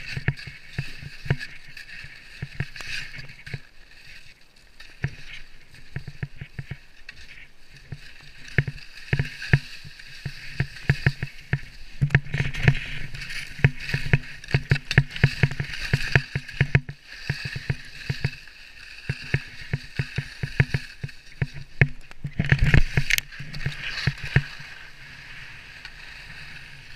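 Skis sliding and chattering over bumpy, uneven snow, with a hiss of snow under the bases and frequent knocks and scrapes from the skis and poles. A louder cluster of knocks and scrapes comes about twenty-three seconds in.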